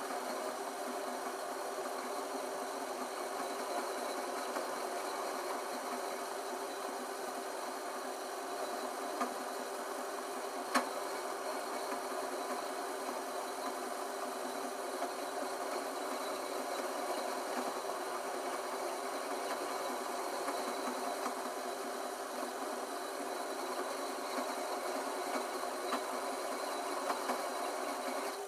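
Small metal lathe running steadily with a steady hum while a flat hand file is held against the spinning copper pipe, scraping its surface. One sharp click about eleven seconds in.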